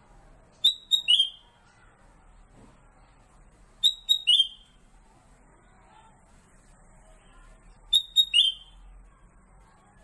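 Caged kutilang emas (cucak kuning, Pycnonotus melanicterus), a yellow bulbul, calling three times, about four seconds apart. Each call is a quick run of three or four sharp, high notes ending in a slightly falling note.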